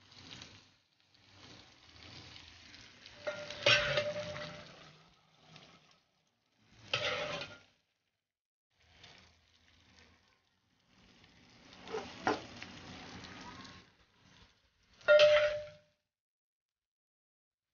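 Stuffed pepper rings with egg sizzling in a frying pan, heard in short spells broken by silent gaps. A metal spatula knocks against the pan twice with a short ring, about four seconds in and again near the end.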